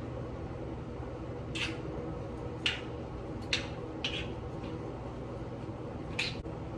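Meat cooking on an indoor grill: a steady low hum with about five short hissing spits scattered through.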